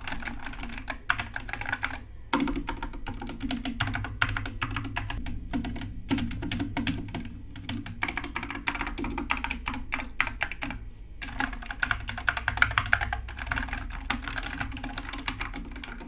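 Fast, continuous typing on an Epomaker Skyloong SK61 60% mechanical keyboard with stock, unlubed Gateron Optical Yellow linear switches: a dense run of key clacks. The typing breaks off briefly about two seconds in and again about eleven seconds in.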